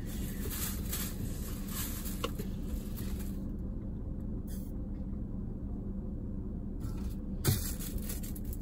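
Steady low hum inside a parked car, with a few faint handling clicks and one soft knock near the end.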